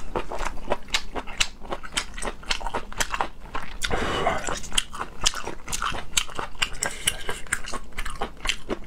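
A person chewing and biting braised octopus close to the microphone, with many quick short mouth clicks.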